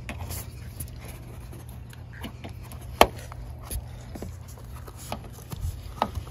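A car's plastic interior trim panel being handled and worked loose: scattered light clicks and rubbing, with one sharp click about three seconds in.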